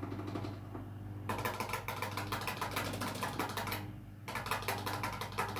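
Cockatiel knocking in two long runs of rapid taps, the first starting about a second in and the second after a short pause, over a steady low hum.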